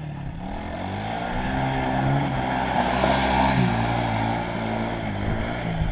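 Small ATV (quad bike) engine revving up and down as it rides toward and past, getting louder to a peak about halfway through as it accelerates hard, with its wheels spinning up dirt and gravel.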